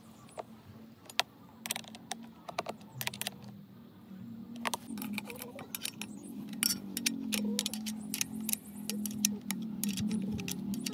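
Irregular sharp metallic clinks and taps of tools and fittings being handled during a borewell submersible pump fitting, over a low hum that grows louder from about four seconds in.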